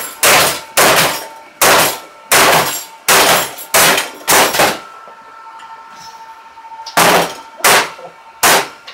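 Repeated heavy blows smashing the sheet-metal case of a Lenovo desktop computer used as a phone-system PBX: about ten sharp metallic clangs, with a ringing that hangs on between strikes. Seven come in a fast run, then a pause of about two seconds, then three more.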